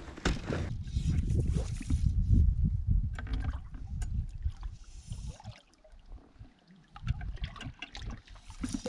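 Water lapping and gurgling against a pontoon boat's pontoons, with an uneven low rumble and scattered small clicks and knocks; it goes quieter for a moment a little past halfway.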